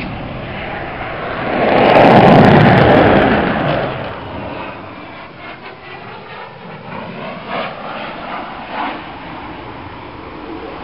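Display aircraft flying past, its engine noise swelling to a loud peak about two seconds in and fading away over the next couple of seconds, leaving a lower distant rumble.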